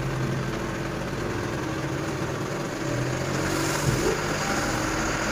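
Eicher tipper truck's diesel engine running steadily as its hydraulic hoist tips the bed loaded with M-sand, the engine note growing a little louder about three seconds in.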